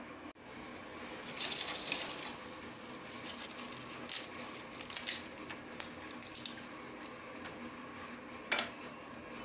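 Dried ginger slices snapped and crumbled between the fingers: a run of crisp crackles and snaps lasting several seconds, then one more snap near the end. The crisp breaking shows the ginger is dried through, brittle enough to snap easily.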